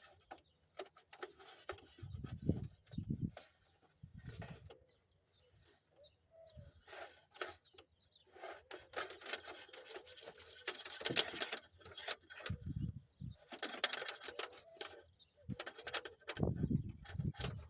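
Irregular rubbing and scraping of hands and tools working in a pickup's engine bay, with scattered clicks and a few dull thumps.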